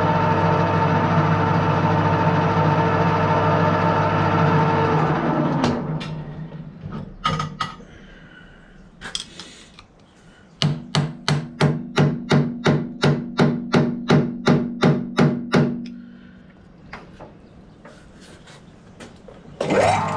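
Metal lathe running steadily, then spinning down about five seconds in. A hammer then strikes a hand tool held against the steel workpiece in the chuck, about three ringing blows a second for some five seconds, and the lathe starts up again near the end.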